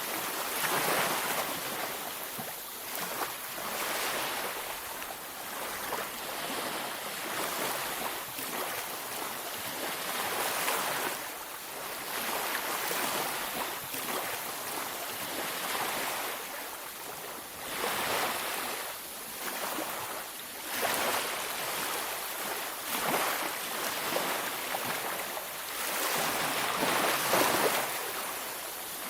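Ocean waves washing onto a beach, a steady hiss of surf that swells and eases every few seconds as each wave breaks and runs out.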